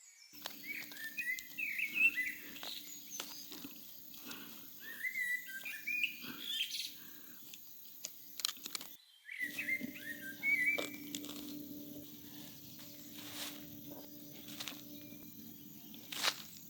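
Small birds chirping in three short bursts of quick rising-and-falling notes, over a steady low hum and scattered light clicks.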